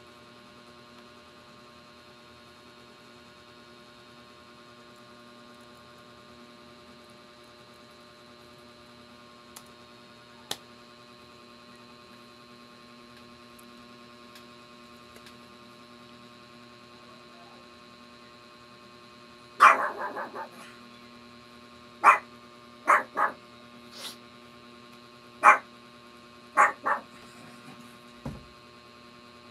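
A steady electrical hum throughout. About two-thirds of the way in, a dog starts barking: a run of about nine loud, separate barks over some eight seconds.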